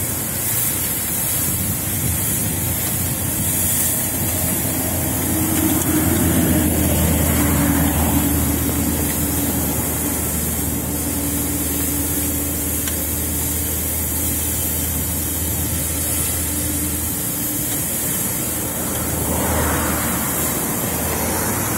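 A fire hose spraying water onto a burnt-out car, a steady hiss of spray and steam. Under it runs a steady engine drone through most of the middle.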